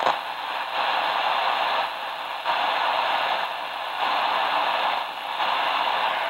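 Shortwave static hissing from a Tecsun PL-660 radio's speaker as it is tuned to around 20 MHz, with no station or time-signal tones coming through. The hiss swells and dips unevenly.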